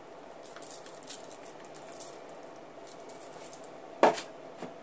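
Pepper being shaken from a shaker onto raw chicken pieces: a faint run of quick, soft high ticks, then a louder knock about four seconds in.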